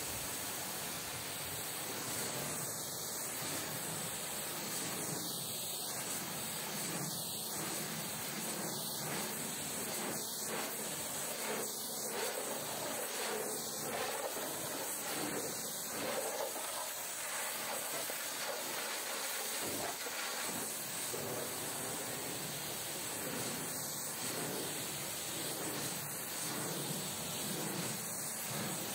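Steady hiss of a pressure-washer spray jet.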